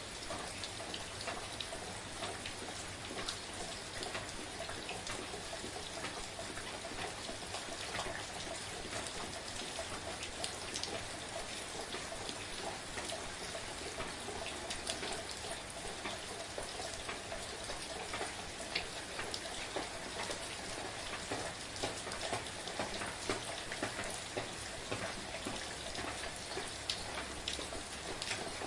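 Steady, gentle rain falling, with individual raindrops ticking on a surface.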